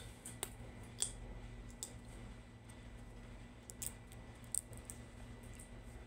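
Light clicks and clinks as salt is shaken from a plastic jar onto a metal spoon over a ceramic bowl, a few sharp ticks scattered through, over a low steady hum.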